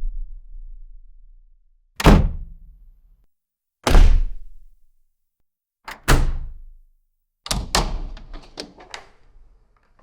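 A series of doors being shut, one after another about two seconds apart: each is a sharp thud with a short decaying ring. One is preceded by a faint click, and another is followed by a run of quick rattling clicks.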